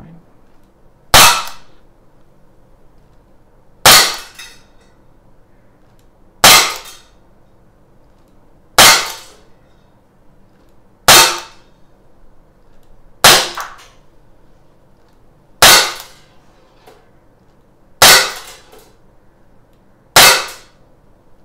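CZ 75 P-07 Duty CO2 BB blowback pistol firing single shots, nine in all, one every two to three seconds. Each is a sharp pop with a short echo off the walls of a small indoor range.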